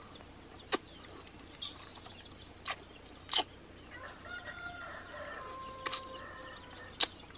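A chicken clucking and calling in a drawn-out run from about four seconds in, over a handful of sharp clicks and crunches from roasted litchi bugs being peeled and chewed.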